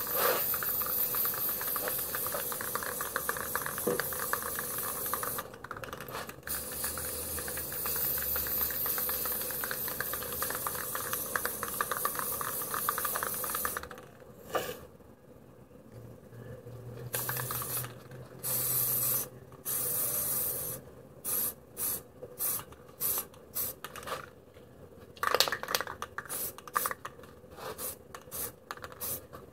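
Aerosol spray-paint can spraying paint onto plywood: a long steady hiss of about fourteen seconds with one brief break, then a series of short spurts.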